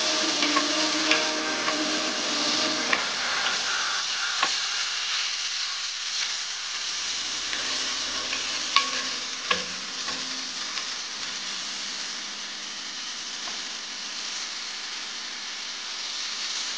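Chicken pieces and chopped onion frying in hot oil in a pan, a steady sizzle, with scattered short clicks and scrapes of a wooden spatula against the pan as the pieces are stirred.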